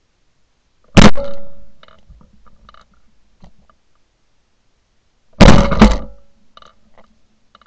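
Two shotgun shots at doves, about four and a half seconds apart, each a very loud blast with a short fading tail, heard from a camera mounted on the gun barrel.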